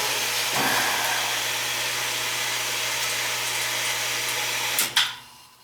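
Well pump running with a steady hum and rush of water, then shutting off with a sharp click about five seconds in.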